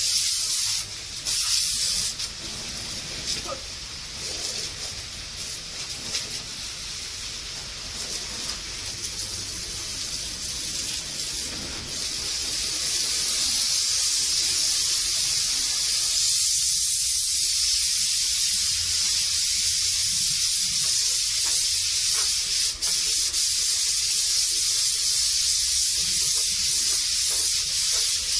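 High-pressure water jet hissing as it sprays and spatters against the mud-caked crawler track and undercarriage of a New Holland 8060 combine harvester. The hiss is uneven and a little quieter through the first half, then steadier and louder from about halfway.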